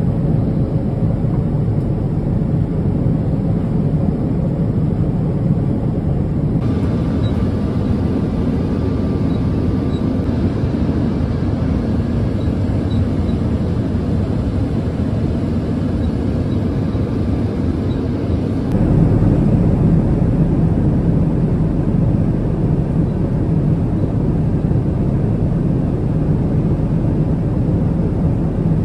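Steady cabin noise of a Boeing 777-200ER in flight, heard from an economy seat: a deep, even rush of air and engine noise. Its tone shifts twice, about seven and nineteen seconds in.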